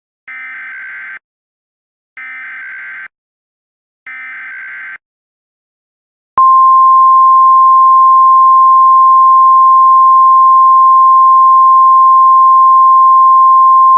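Emergency Alert System SAME header: three short warbling data bursts about a second long each, two seconds apart, followed about six seconds in by the NOAA Weather Radio warning alarm, a single loud steady tone, much louder than the bursts.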